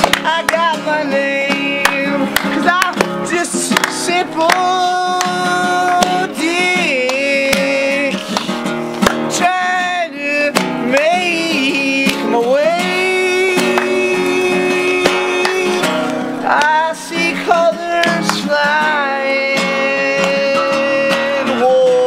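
A song: strummed acoustic guitar under a man's voice singing long, held notes.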